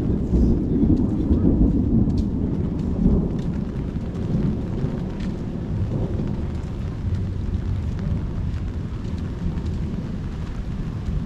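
Rolling thunder rumbling low, strongest in the first few seconds and then easing off, over steady rain.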